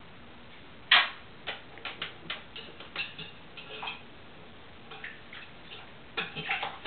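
African grey parrot bathing in a stainless steel water bowl: a loud first splash about a second in, then a run of short, sharp splashes as she dips and flutters her wings. The splashes ease off briefly and pick up again near the end.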